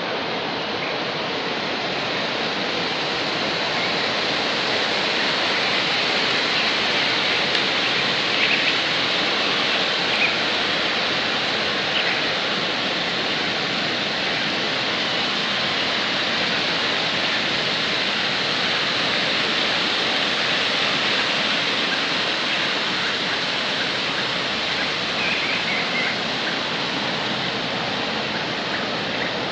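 Steady rush of water spilling through a dam's spillway gates and churning in the river below, swelling slightly in the middle.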